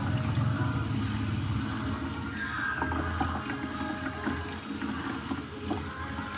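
Water running and splashing in a stainless steel sink as tilapia are washed and scraped by hand.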